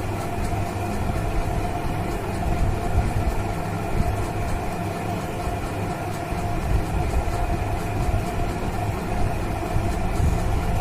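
A steady mechanical hum with a held tone in it, running evenly throughout.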